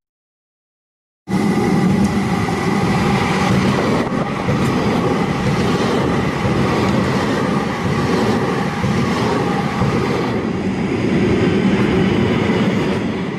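Silent for a little over a second, then a Porto Metro light-rail tram passing close by starts abruptly: a steady high electric whine over rolling wheel and track noise, easing slightly near the end.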